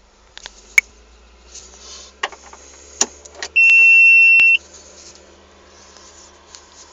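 A few sharp clicks and knocks, then a single steady high electronic beep lasting about a second, over a low steady hum.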